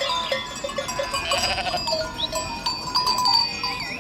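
Sheep bleating, mixed with steady ringing tones like those of sheep bells, and a few bird chirps.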